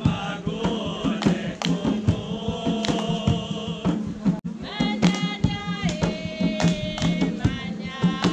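Chamorro traditional song: a group singing in chorus over a steady beat of short strikes, a few each second, with higher voices joining about five seconds in.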